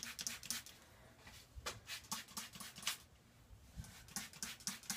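Hand-pumped trigger spray bottle of diluted no-rinse dog shampoo being squirted onto a dog's paws. The squirts come in quick runs of short hisses, a few strokes a second, with pauses of about a second between runs.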